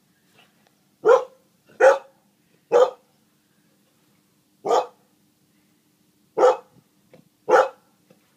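A dog barking six times, each a short single bark: three about a second apart, a pause of nearly two seconds, then three more.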